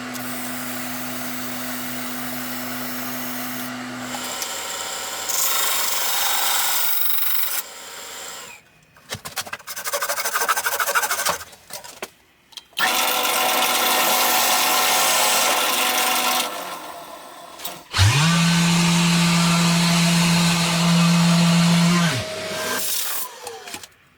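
Woodworking power tools run in a series of separate bursts with short pauses between them. Near the end a motor spins up quickly, runs steadily for about four seconds and stops.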